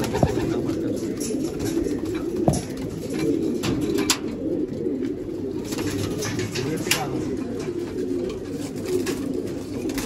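Many domestic pigeons cooing together in a continuous low murmur, with a few sharp clicks scattered through it.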